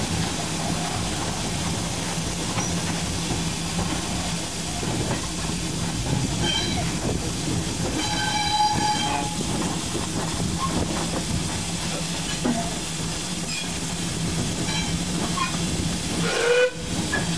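Small saddle-tank steam locomotive running along the line, heard from its front end as a steady mechanical noise with a low hum. About eight seconds in, it gives one short whistle blast.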